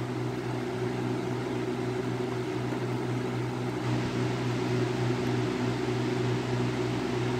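Lasko B20401 20-inch box fan running on its low speed: a steady, even rush of air over a low motor hum, the kind of constant white noise this fan is praised for on low.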